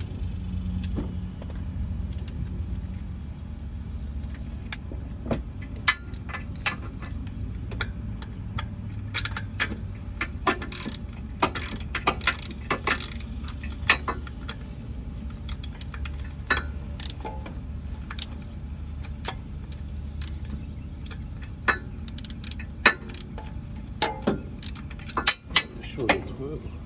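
Hand tools working on compressor mounting bolts: a socket ratchet and metal parts clicking and clinking at irregular intervals, with a denser run of clicks a little before halfway, over a steady low hum.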